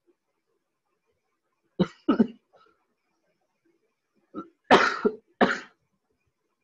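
A person coughing: two coughs about two seconds in, then a second bout of several coughs around five seconds in.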